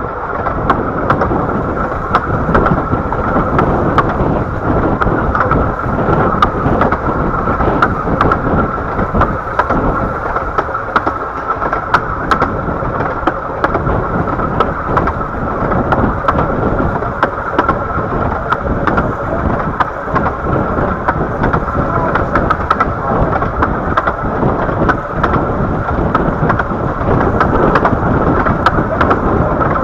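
Riding in a carriage of a 15-inch-gauge train: a steady rumble of the train running along the track, with frequent clicks and knocks from the wheels on the rails.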